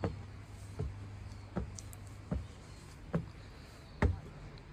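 Footsteps on wooden decking, one thudding step about every 0.8 seconds, over a steady low hum.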